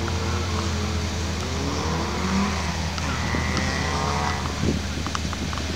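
Rally car engine running at idle, a steady low drone whose pitch wavers a little.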